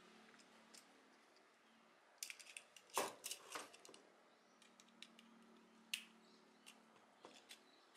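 Quiet clicks and taps of a screwdriver and small screw against 3D-printed plastic parts as an M3 screw is driven into a conical post, a cluster of clicks about two to four seconds in and a single sharper click about six seconds in.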